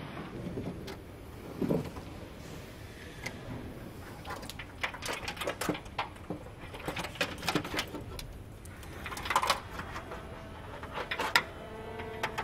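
Irregular clicks, taps and knocks of hand assembly work on a car body: parts being fitted and clipped inside the shell. A duller thump comes about two seconds in. Under it runs a steady low factory hum.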